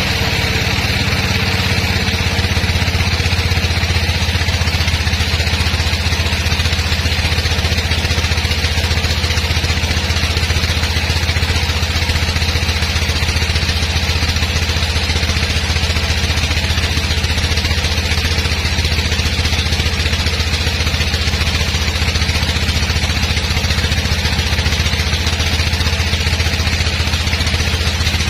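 A sawmill's engine running steadily at a constant speed, with a steady higher hiss above the low engine hum.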